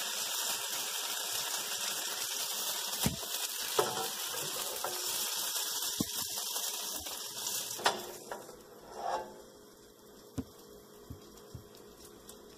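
Fried rice noodles sizzling in a hot nonstick wok while a spatula scrapes them out onto a glass plate, with a few sharp clinks of the spatula against wok and plate. The sizzle dies away about eight seconds in, leaving only a few faint taps.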